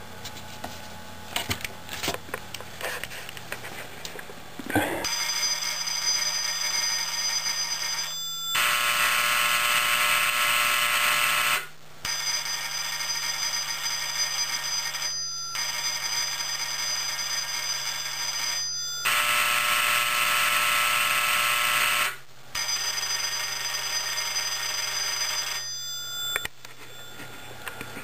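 A bank of electric doorbells and buzzers, sequenced by an IDEC Micro-1 PLC, ringing in changing combinations. After a few clicks and knocks, steady many-toned ringing starts about five seconds in. The mix of bells shifts every few seconds, with two brief breaks.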